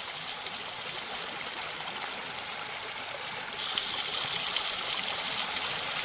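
A shallow rocky stream running over stone slabs, a steady rush of water. A little over halfway through, it jumps to the louder, brighter splashing of a small cascade falling close by over a rock ledge.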